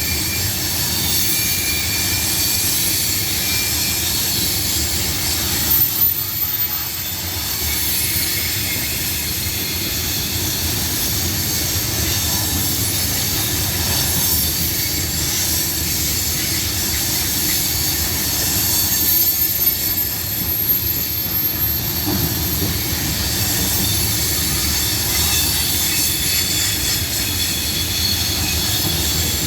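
Freight cars of a grain train rolling past: a steady rumble of steel wheels on rail, with thin high-pitched wheel squeal coming and going and a few louder knocks.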